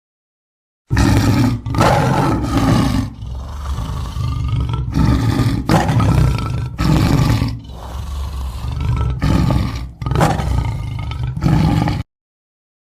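Tiger roaring, a string of loud deep roars with quieter stretches between them. It starts abruptly about a second in and cuts off suddenly near the end.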